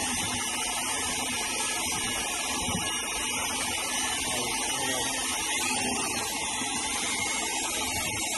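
Electric drill with a paddle mixer running steadily, stirring thinset tile mortar in a plastic bucket.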